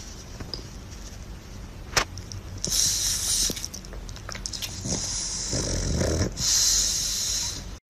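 Pug breathing noisily through its short, flat nose: wheezy, snuffly breaths in three spells, the last two longest, with a sharp click about two seconds in.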